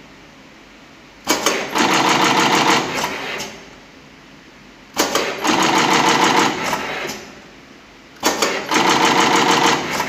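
Semi-automatic flat cable crimping machine running three work cycles, about every three and a half seconds. Each cycle starts with a few sharp clicks, then about two seconds of fast, even mechanical rattle, and dies back to a steady low hum.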